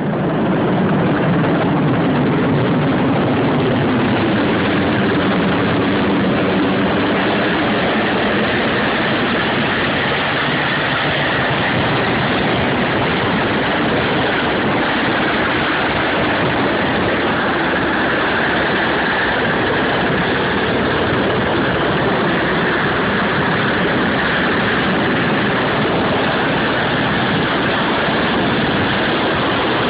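RAF Merlin helicopter's turbine engines and rotor running, loud and steady, as it comes in low to land.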